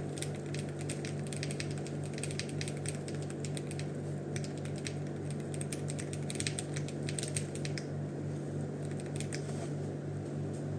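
Typing on a foamless gasket-mounted acrylic keyboard with Owlab Ti hall-effect magnetic switches, a polycarbonate plate and ABS doubleshot Cherry-profile keycaps: a fast run of keystroke clacks that thins to a few scattered presses near the end.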